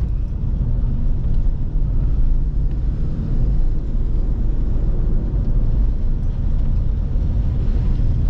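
Steady road and engine rumble inside the cabin of a Škoda car driving on a wet road, with tyre hiss over a deep low drone.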